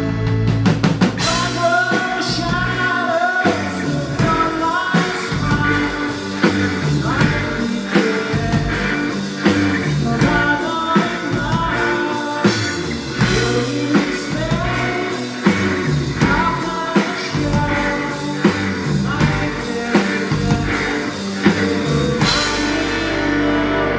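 Live rock band playing, with a singer over electric guitar, bass and a drum kit keeping a steady beat.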